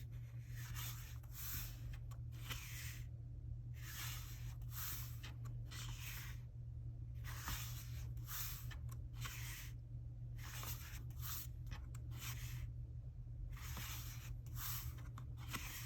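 Paper pages of a colouring book being turned and handled: soft, irregular rustles, one every second or so, over a steady low hum.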